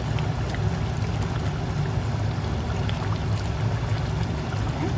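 A spatula stirring chicken curry in a pan, with faint scrapes and small clicks, over a steady low hum.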